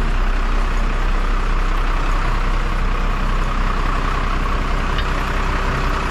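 Truck engine running steadily, driving the truck-mounted hydraulic crane, with a constant low hum and a steady hiss over it.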